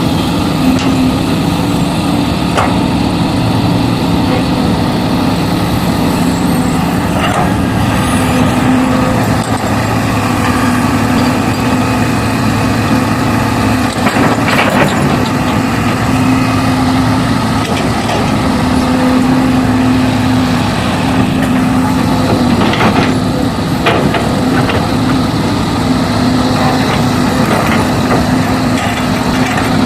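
An engine running steadily at idle, a constant low drone, with a few short knocks and clicks scattered through it.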